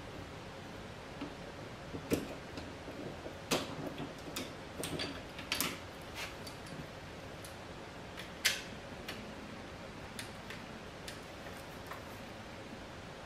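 Scattered light clicks and knocks of a camera slider's head and fittings being handled and fitted together, most of them in the first six seconds, with one sharper click about eight and a half seconds in.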